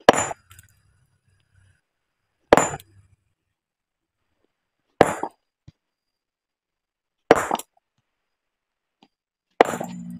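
Steel hammer striking a large stone boulder by hand to split it: five hard blows about every two and a half seconds, each a sharp crack with a short metallic ring.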